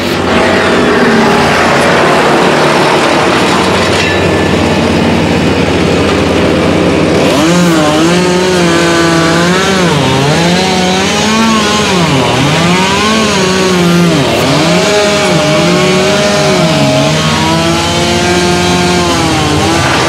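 Small two-stroke chainsaw cutting the tree, its engine note repeatedly sagging under load and climbing back about once a second from about seven seconds in. Before that, a dense, steady machine noise.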